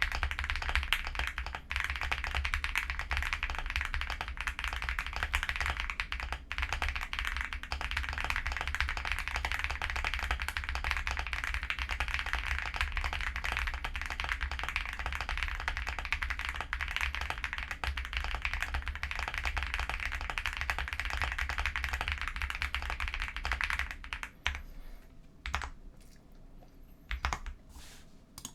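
Fast, continuous typing on an Epomaker x Feker Galaxy80 mechanical keyboard with lubed Akko V3 Creamy Purple Pro tactile switches and PBT keycaps. About four-fifths of the way through, the typing thins out to a few separate keystrokes.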